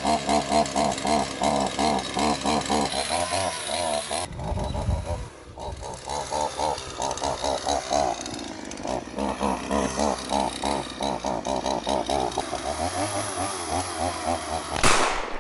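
Chainsaw engine running in a rapid pulsing rhythm of about four surges a second, easing off briefly a few seconds in. A sharp, loud hit comes near the end.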